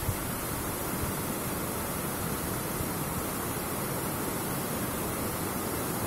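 Steady rush of water from a stream cascading over rocks, with a waterfall behind, as an even, unbroken hiss. A soft low bump right at the start.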